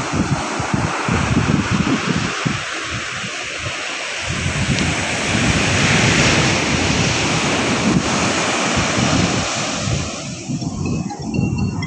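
Sea surf breaking and washing up the shore, a steady rushing that swells about six seconds in, with wind buffeting the microphone.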